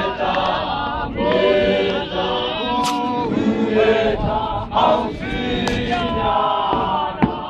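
Men's chorus of Zion Christian Church mokhukhu dancers singing and chanting together in harmony, many voices on held, gliding notes, with a few sharp knocks.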